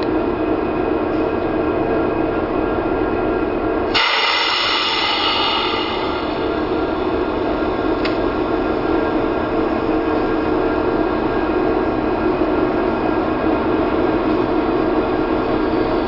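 Union Pacific diesel freight locomotive running steadily as the train approaches, its engine drone layered with rolling train noise. About four seconds in, a shrill sound with several tones starts suddenly and fades away over about two seconds.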